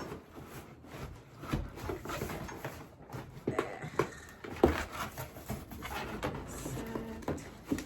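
Cardboard boxes being handled and pulled apart: irregular knocks, scrapes and rustles of cardboard.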